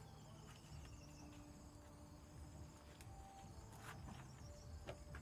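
Near silence: faint insects chirring steadily in the background, with a few soft footsteps and light knocks.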